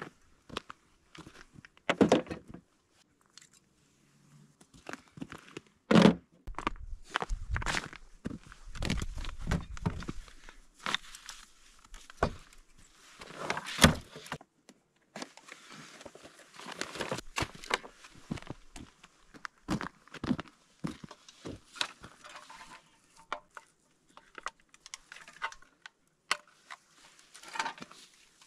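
Irregular knocks, thuds and rustling, with louder thumps about two, six and fourteen seconds in.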